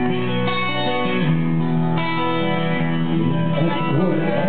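Live rock band playing the instrumental opening of a song: electric guitars ringing out held chords, with keyboard, through the hall's amplification.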